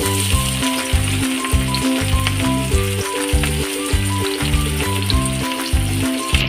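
Chopped carrots frying in hot oil in a wok, a steady sizzle. Background music with a steady beat plays throughout.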